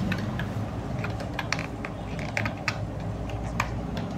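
Computer keyboard keys clicking as a name is typed: short, irregular keystrokes, several a second.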